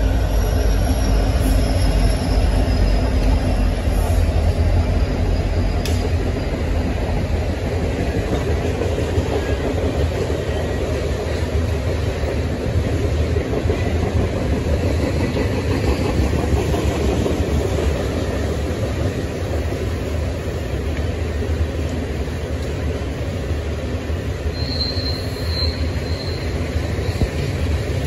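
Long freight train of loaded coal cars rolling past on a curving track: a steady rumble and clatter of steel wheels on the rails, with a short wheel squeal on the curve near the end.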